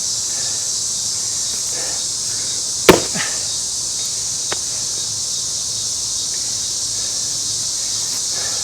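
A single axe strike into a Scots pine round about three seconds in, on a round that is cracking but not yet split through. A steady high insect chirring runs underneath.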